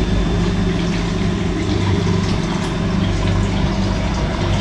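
Water pouring steadily into a pressure cooker of soaked chickpeas, with a low hum under it.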